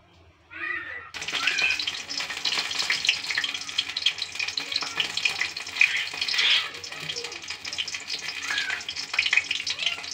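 Shapla (water lily) fritters coated in spice paste and rice flour, frying in hot oil in a karai: a dense crackling sizzle that starts suddenly about a second in, as the pieces go into the oil.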